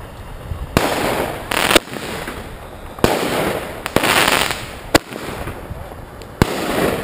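Fireworks going off one after another, about six sharp bangs roughly a second apart, each followed by a short burst of crackling as gold crackle stars break open.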